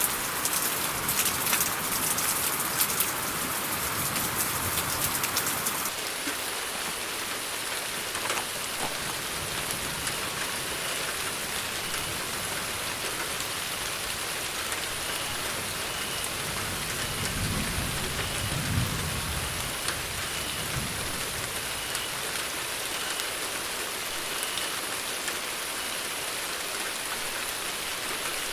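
Steady rain falling, denser and crackling with close drops for the first few seconds, then settling into an even hiss. A low rumble swells and fades about two-thirds of the way through.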